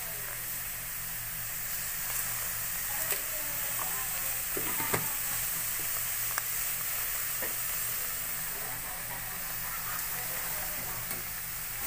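Crabs frying with garlic and onion in a pan: a steady sizzle, with a few sharp clicks of a ladle against the pan, the loudest about five seconds in.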